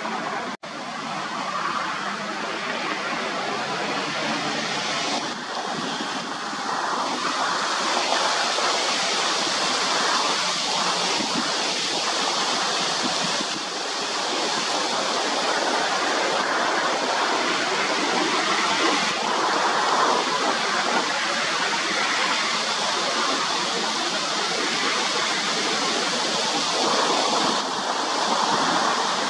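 Steady jet roar of a Bombardier Global 6000's twin rear-mounted turbofans as the business jet passes overhead, growing louder from about eight seconds in. A brief dropout just under a second in.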